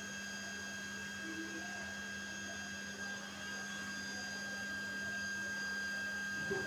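Steady background hum with a thin, high, steady whine above it; nothing else stands out.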